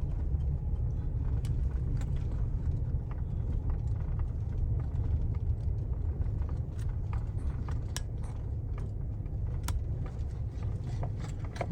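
Steady low rumble of a pickup truck running, with scattered light clicks and taps over it.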